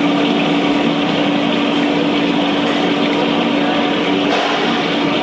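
A machine running steadily, with a constant low hum over an even rushing noise.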